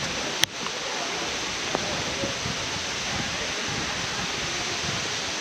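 Steady rush of a waterfall: falling water making an even hiss, with a single sharp click about half a second in.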